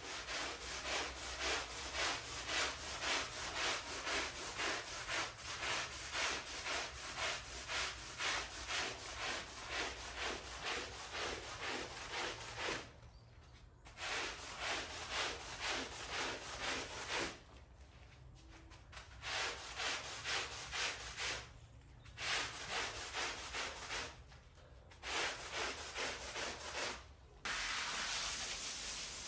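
Long-handled stiff-bristled brush scrubbing a wet, soapy rug on a tiled floor: rhythmic scraping strokes about two a second, with a few short pauses. A steady hiss takes over near the end.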